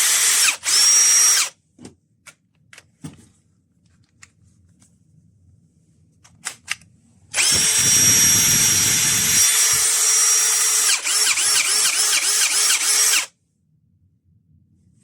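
AEG 18V brushless compact drill-driver running with a high motor whine: two short trigger pulls at the start, then a run of about six seconds that pulses rapidly over its last two seconds before stopping.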